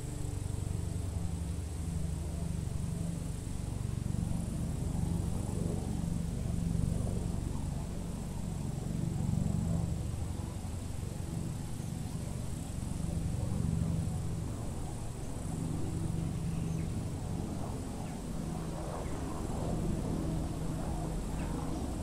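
Open-field ambience: a steady low rumble with a thin, steady high insect buzz running above it.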